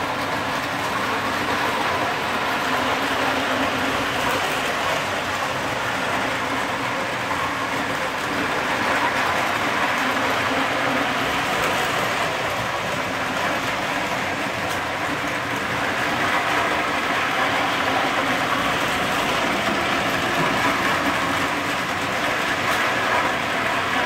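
Two Lionel O-gauge toy trains running steadily on O-27 tubular track at the same time: the whir of their electric motors mixed with the rolling of their wheels over the rails.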